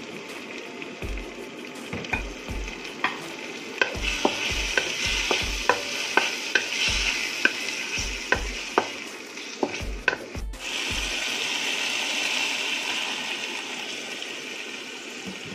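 Diced ham, kimchi and onion sizzling in a frying pan as a wooden spatula stirs them, clicking and scraping against the pan about twice a second. There is a brief break about ten seconds in, and after it the sizzling carries on steadily without the clicks.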